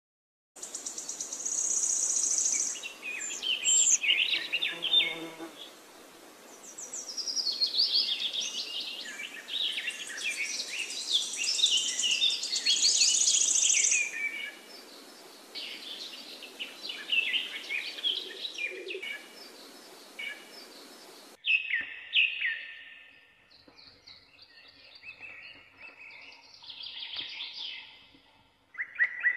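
Birds chirping and singing, many short calls overlapping, with a high buzzing trill at times. About two-thirds of the way through the sound cuts abruptly to sparser, quieter chirps.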